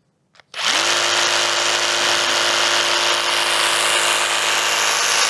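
Cordless power tool switched on about half a second in after a couple of small clicks, spinning up quickly and then running with a loud, steady whine at one pitch.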